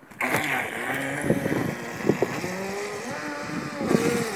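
Radio-controlled Osprey speedboat on a 6S battery taking off at speed: its electric motor starts suddenly just after the start, whining and rising and falling in pitch with the throttle, over the rush of water and spray from the hull.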